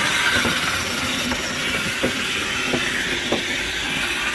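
Grillbot grill-cleaning robot running on a dirty Weber gas grill grate: a steady whirring scrape from its motor-driven wire brushes, with scattered clicks and rattles as it works over the grate bars, scraping off baked-on carbon.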